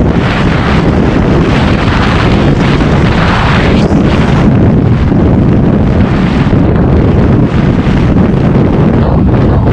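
Loud, steady wind rushing over the microphone of a TVS Ntorq 125 scooter running flat out at about 100 km/h.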